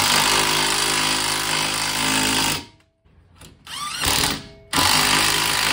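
Cordless impact wrench hammering as it pulls a new ARP wheel stud into the hub flange. It hammers for about two and a half seconds and stops, gives a couple of short bursts, then hammers steadily again for the last second.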